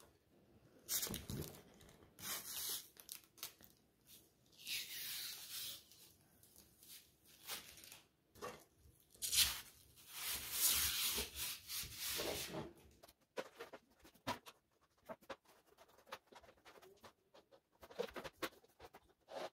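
Irregular rustling, rubbing and tearing sounds of material being handled by hand. The strokes come in uneven bursts, with the longest and loudest stretch about ten seconds in, then only scattered light clicks and rustles.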